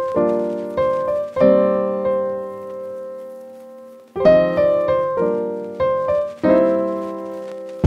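Background music: a keyboard playing chords, each struck and left to fade, with one chord held ringing for nearly three seconds before the playing resumes.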